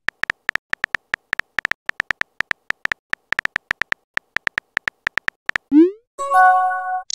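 Phone-keyboard typing clicks from a texting-story animation, about four or five quick taps a second as a message is typed. Near the end come a short rising swoosh as the message is sent, then a brief chime of several steady tones.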